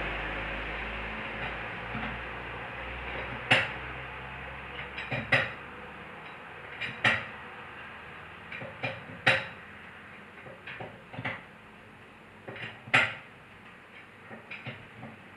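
Metal tools and wheel parts clinking and knocking during a tyre change: about a dozen sharp, irregular metallic clinks over a steady hum that fades away in the first half.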